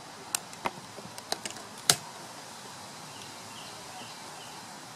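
About five sharp clicks and taps in the first two seconds as a tape measure and marker are handled against a PVC pipe while measuring and marking it, over a steady faint hiss.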